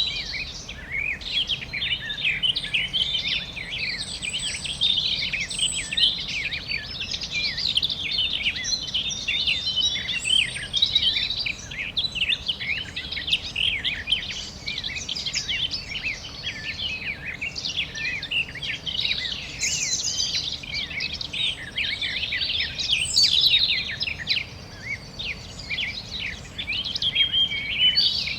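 Many birds chirping and calling at once in a dense chorus of quick, overlapping chirps and short trills, over a faint steady background hiss.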